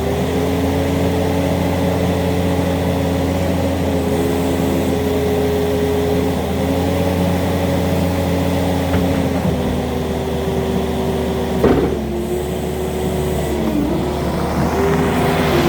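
John Deere 317G skid steer's diesel engine running steadily at high revs, its pitch dipping briefly a few times in the second half. One sharp knock about twelve seconds in.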